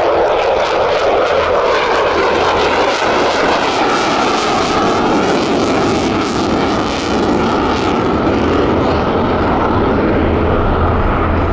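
An F-35C Lightning II's Pratt & Whitney F135 jet engine heard loud and steady during a display pass, a dense rush of noise with a tone that slowly shifts in pitch.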